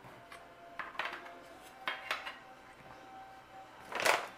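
Metal cookie cutters clinking as they are handled, with a few light knocks and a louder clatter about four seconds in as they are set down on the countertop.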